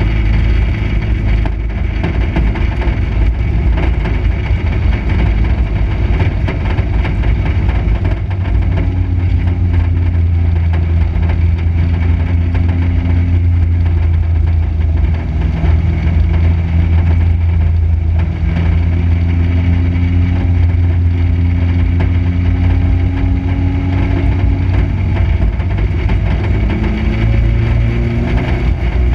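Dirt-track stock car's engine running, heard inside the cockpit as a loud, steady low drone; its pitch rises near the end.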